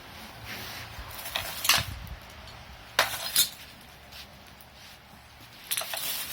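Several sharp metallic clinks and taps spread over a few seconds, the loudest about three seconds in. They come from a tool working on the metal connection fitting of a gas cylinder as it is screwed on.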